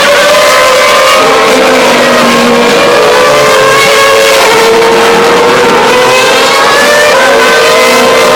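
Race car engines at high revs, very loud, several overlapping notes sliding in pitch as cars pass on the track.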